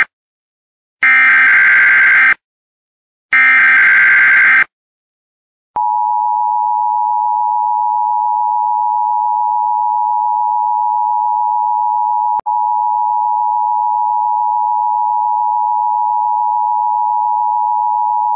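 Emergency Alert System alert tones: three bursts of harsh, screeching digital header data about a second apart, then the steady two-tone EAS attention signal, a loud, shrill held chord with a momentary break partway through.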